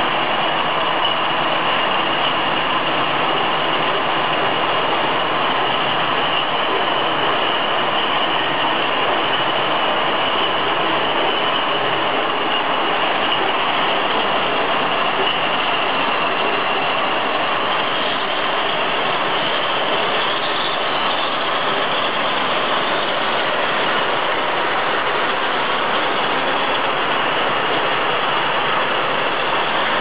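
Automatic glass beer bottle line running: conveyor and machinery moving packed glass bottles along, a loud, steady mechanical din with a faint high whine.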